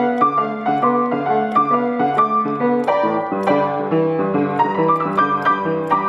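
Grand piano played in a blues and boogie-woogie style, a repeating left-hand bass figure under right-hand riffs. The piano is new and, by the player's account, needs some tuning.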